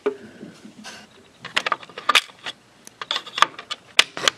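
Small metal parts and a hand tool clicking and clinking inside a stereo's metal chassis as it is being taken apart: a knock of handling at the start, then from about a second and a half in a quick, irregular run of sharp metallic clicks and taps.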